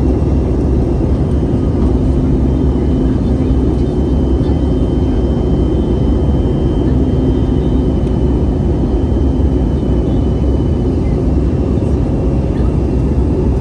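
Steady jet engine and airflow roar heard inside an airliner cabin, with a faint high whine held steady throughout.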